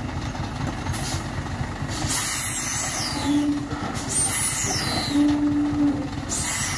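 Diesel tractor unit running slowly under a heavy container trailer, with several sharp hisses from its air brakes. A low steady beep sounds twice, near the middle and toward the end.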